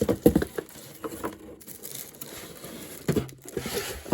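Packaging being handled and crinkled while a boxed diecast model car is opened, with a few sharp knocks and clicks in the first half second and more rustling later.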